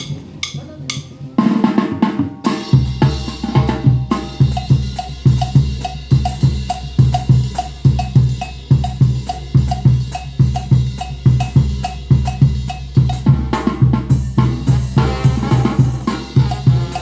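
Banda brass band playing a lively son: a fast, steady beat of drums and cymbals under repeating low bass notes and brass. It opens lighter and the full band with the bass comes in about two and a half seconds in.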